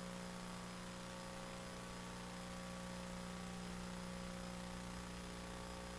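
Steady electrical hum of a microphone sound system, several steady tones over a faint hiss.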